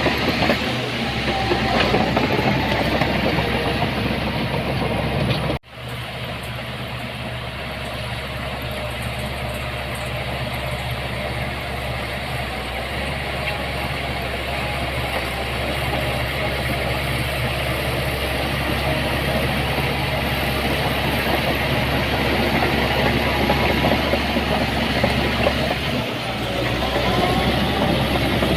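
Heavy diesel earthmoving machinery engine running steadily, with a constant low hum under a broad mechanical din. The sound cuts out abruptly for an instant about five and a half seconds in, then carries on.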